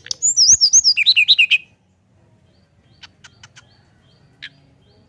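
Brown-chested jungle flycatcher singing: a quick, loud run of high chirping notes that step down in pitch, lasting about a second and a half. A few faint clicking notes follow about three seconds in, and a single short note comes near the end.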